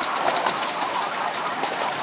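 Wheels of a 7¼-inch gauge miniature railway train rolling along the track, a steady rattling clatter with fine quick clicks, heard from the riding car.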